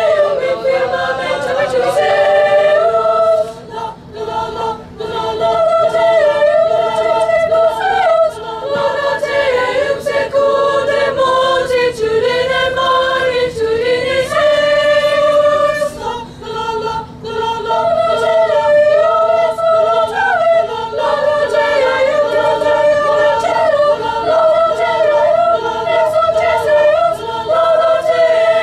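High school choir singing with long held notes, with short breaks about 4 seconds and 16 seconds in.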